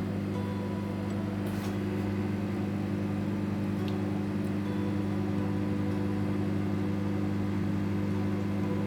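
Microwave oven running steadily, an even low hum with a faint tick or two, partway through a one-minute run heating a cup of water.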